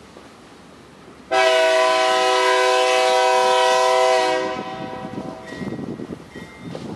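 Diesel locomotive air horn sounding one long blast of about three seconds, several notes at once, starting about a second in and cutting off.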